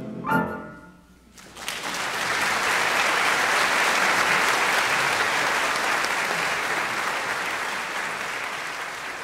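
The closing chord of a men's choir with piano ends just after the start, a second of near silence follows, and then an audience applauds, the clapping building quickly and slowly tapering off.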